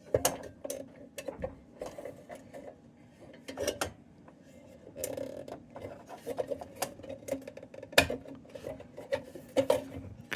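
Steel parts of an old Dietz Monarch hot blast lantern being handled and taken apart: an irregular run of light metallic clinks, taps and rattles, with a sharper knock about eight seconds in.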